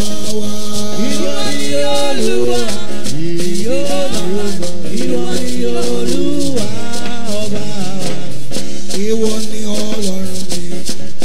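A man singing a worship song into a microphone, with a shaker keeping a steady rhythm underneath.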